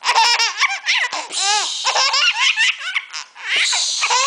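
Baby laughing hard: high-pitched belly laughs in quick chopped runs, with brief pauses between them.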